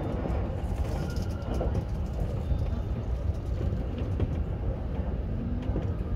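Electric commuter train running, heard from inside the front car: a steady low rumble of wheels on rails, with a few short clicks as the wheels cross joints and points.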